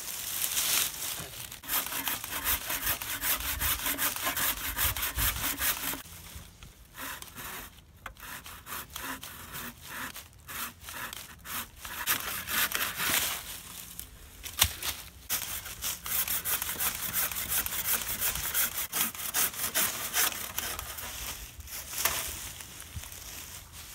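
Hand saw cutting through a rotting fallen log in quick back-and-forth strokes, stopping briefly twice before starting again.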